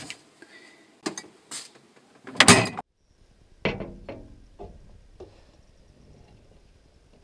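Items knocked about inside a refrigerator, then the fridge door shutting with a loud thud about two and a half seconds in. After a brief silence, a drinking glass is set down on a glass tabletop with a ringing clink, followed by a few fainter knocks.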